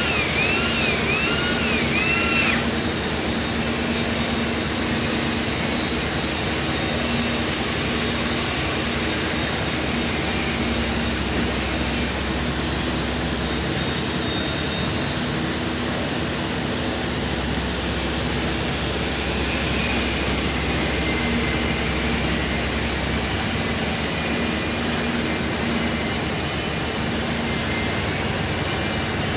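Steady machinery or engine noise with a faint hum that comes and goes. A repeating warbling tone sounds over it for the first two seconds or so.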